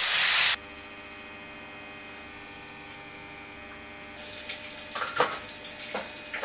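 A brief sizzle as sliced tomatoes and onions slide into hot oil in a pan, cutting off suddenly after about half a second. Then a steady electrical hum, with a few faint knocks near the end.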